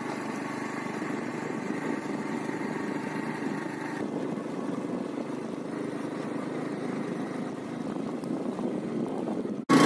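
Small motorbike engine running at a steady speed while riding.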